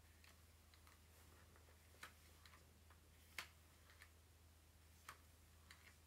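Near silence with a steady low hum and several faint, irregular clicks, the loudest a little past the middle: a hair straightener's plates clicking together as it is clamped and run through hair.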